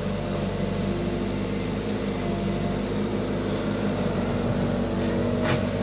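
Kato HD450 long-reach excavator's diesel engine running with a steady, even hum while the arm lifts a bucket of soil.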